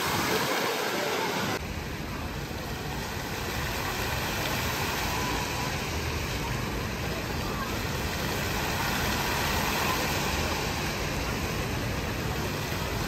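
Steady background noise with a faint murmur of voices, changing abruptly about a second and a half in.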